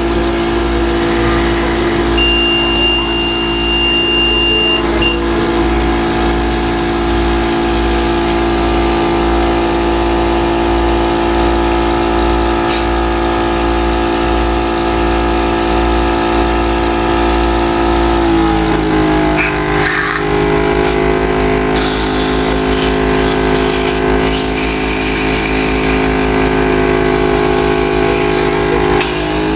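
Electric chest-physiotherapy percussor buzzing steadily during airway-clearance percussion therapy. About two-thirds of the way through, the buzz changes to a lower pitch, and it returns to the first pitch near the end. A thin high tone sounds for a few seconds near the start.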